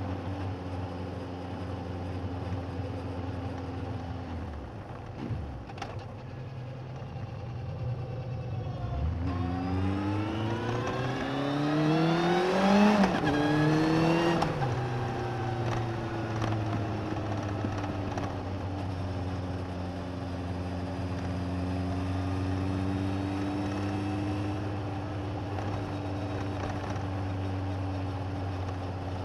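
Suzuki GSX1250FA's inline-four engine on the move, heard from a recorder under the seat. It runs steadily, then about nine seconds in the revs climb hard for about five seconds, with one short dip partway. After that it eases back to a steady cruise.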